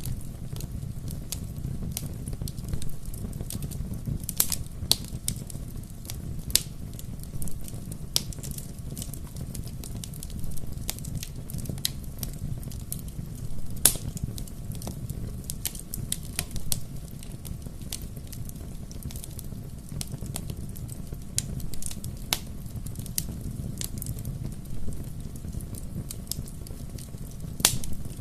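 Bonfire burning, a steady low rumble of flames with irregular sharp crackles and pops of burning wood, a few of them louder.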